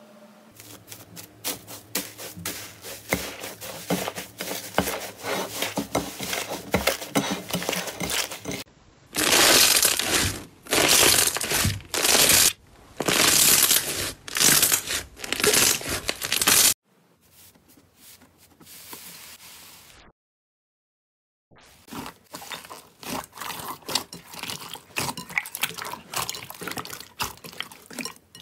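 Hands squeezing and stretching slime: dense fine crackling from foil-covered slime for about the first eight seconds, then a run of loud squishing and stretching bursts. After a brief silence, clicky popping and squelching of clear slime follows.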